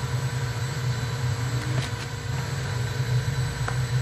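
Steady low drone of a jet's engines heard inside the cabin, with a couple of faint clicks.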